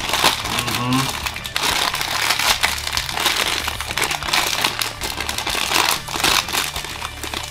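Shiny black foil blind bag of a Funko Mystery Mini figure crinkling and crackling continuously as it is handled and worked open by hand.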